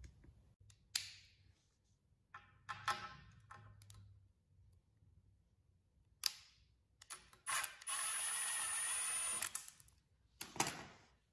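Milwaukee Fuel cordless driver running for about two seconds, backing a screw out of the aluminium end fitting of a whisker pole. Before it come a few short knocks and clicks of the tool and pole being handled, and another knock follows near the end.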